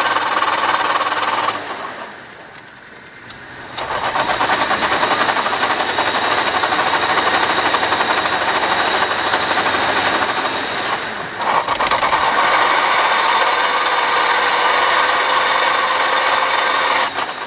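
Mitsubishi Pajero Mini (H58) engine and manual transmission running, with a steady whine; the sound drops away briefly about two seconds in and again about eleven seconds in.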